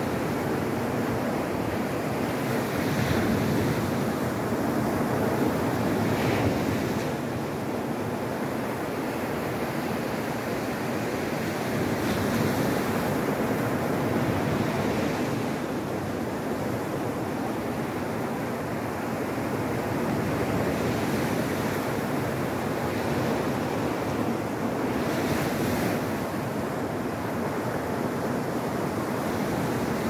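Atlantic surf breaking over rocks and washing up a pebble beach in a continuous rush, swelling louder every few seconds as each wave breaks.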